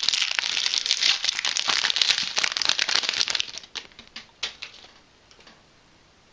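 Foil wrapper of a Yu-Gi-Oh booster pack crinkling as it is torn open and the cards are pulled out. The dense crinkling stops about three and a half seconds in, followed by a few last rustles.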